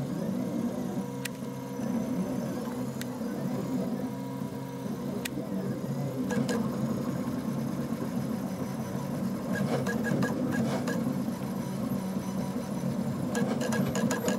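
Stepper motors of a home-built Printrbot-type 3D printer whirring in steady tones as the print head moves over the part. There are a few sharp clicks, and spells of quick ticking around the middle and near the end.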